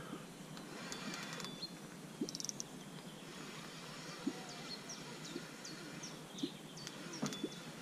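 Quiet riverside ambience with small birds chirping, and a brief run of fast clicks from a fishing reel's drag about two seconds in while a hooked carp pulls line.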